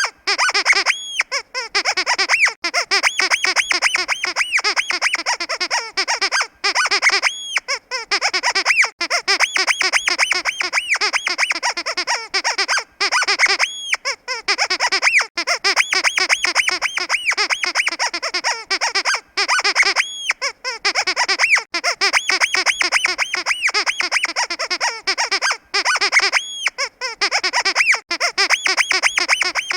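Squeaky pig dog toy being squeezed over and over in rapid runs of squeaks, with brief pauses about every six seconds.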